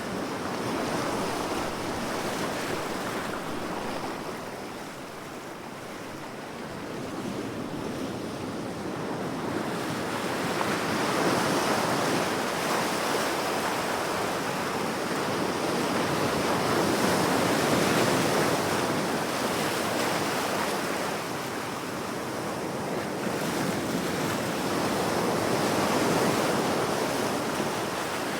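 Ocean surf: waves breaking and washing on the shore in a continuous rush that swells and ebbs every several seconds, with a little wind.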